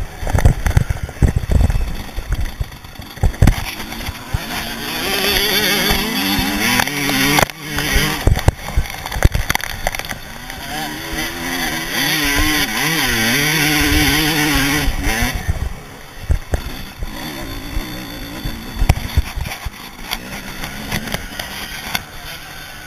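Motocross dirt bike engine revving hard, its pitch rising and falling through the gears, loudest from about four to fifteen seconds in and easing off after that. Low wind rumble and thuds on the handlebar-mounted camera run under it, strongest in the first few seconds.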